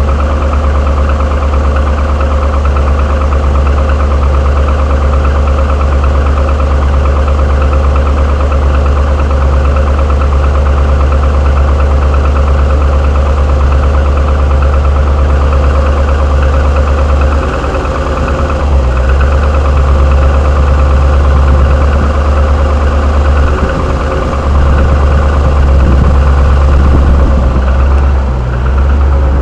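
GM 6.0 L LS2 V8 of a 2007 Trailblazer SS running with a knocking rattle, which the owner takes for piston slap and GM calls normal.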